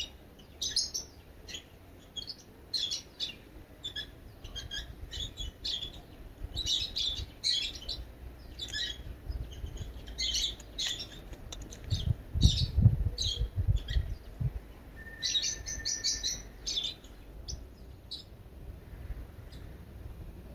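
Small birds chirping in many short, high calls throughout, with a few low thuds about twelve seconds in.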